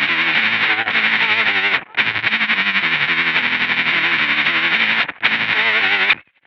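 Electric guitar played through a Kemper with a fast staccato tremolo and a telephone filter, so the tone is thin and narrow and chopped rapidly. The sound cuts off abruptly each time the playing stops, in short gaps about two seconds in, about five seconds in and just before the end.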